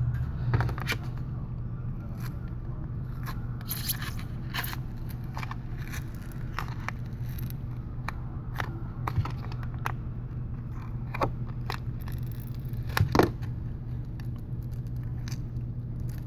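Prying tools scraping and clicking at the edge of an iPad mini 3's glass digitizer as it is worked loose from the frame, in irregular short strokes with the loudest click about 13 seconds in. A steady low hum runs underneath.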